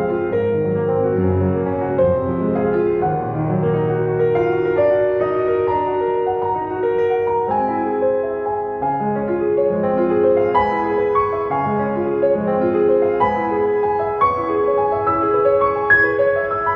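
Background piano music, a slow gentle melody over held chords.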